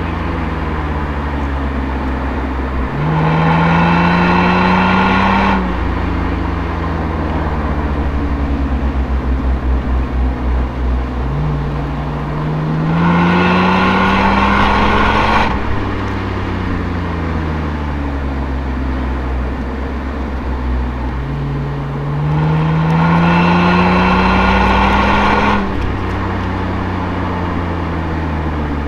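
Toyota Altezza's 1G-FE straight-six through an Apexi aftermarket exhaust, heard close at the tailpipe. Three times it pulls under throttle, rising in pitch and growing louder, then the throttle lifts and the pitch slowly falls as the car coasts.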